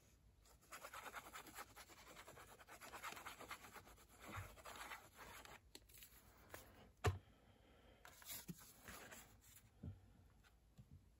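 Faint scratching of a liquid-glue bottle's nozzle drawn across paper as glue is squeezed out, lasting about five seconds. A single knock follows a little later, then light handling of card.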